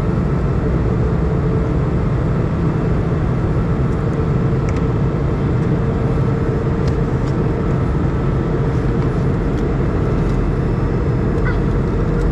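Steady engine and airflow noise inside the cabin of an Airbus A320 in flight, a constant drone with a held mid-pitched tone over a low hum.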